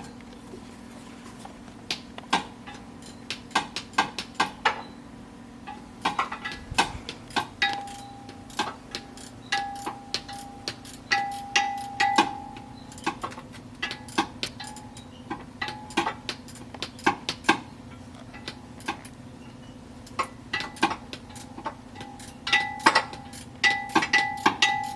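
Hand ratchet and socket working a G37 starter's mounting bolts loose: irregular metallic clicks and clinks, many with a short ring, over a steady low hum.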